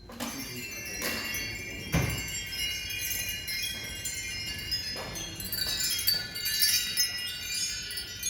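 Hanging wind chimes jingling as they are set swinging, many high ringing notes overlapping, with a sharp strike about every second early on and again about five seconds in.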